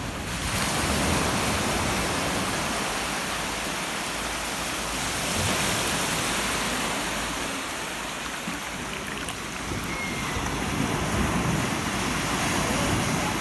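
North Sea waves washing onto the shore, a steady rush that swells and eases about three times.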